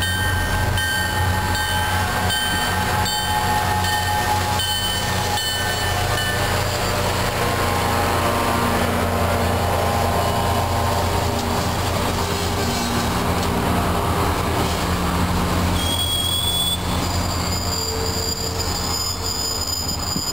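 MBTA commuter train rolling past close by, a diesel locomotive and its passenger coaches: a loud, steady low rumble with wheel clicks in the first several seconds. High-pitched wheel squeal sets in from about three-quarters of the way through as the last coaches go by.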